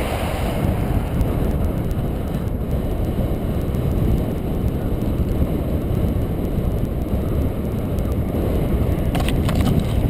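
Strong wind blowing over the microphone of a camera riding on a moving bicycle: a steady, loud, low rumble of wind noise, with a few light clicks near the end.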